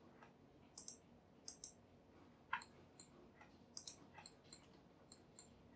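Faint, irregular clicks of a computer mouse and keyboard, about a dozen: shift-clicks selecting faces and mouse-wheel scrolling, with near silence between.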